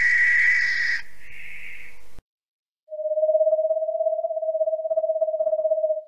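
A high whistled call in the first second, then after a sudden break an owl's song: a rapid pulsing trill held on one low pitch for about three seconds.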